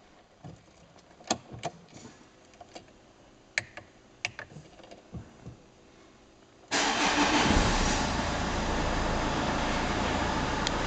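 A handful of sharp clicks and knocks, then about seven seconds in a Renault Scénic's 1.9 dCi four-cylinder turbodiesel starts, flares briefly and settles into a steady idle. The owner finds the engine noise suspect.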